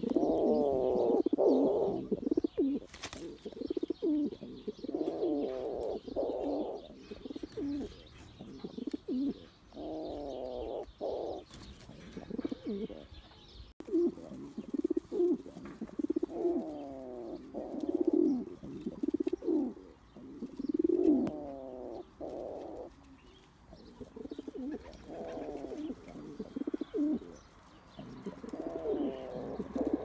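Pigeons cooing: low, wavering coos in phrases of a second or two each, repeated one after another with short pauses between them.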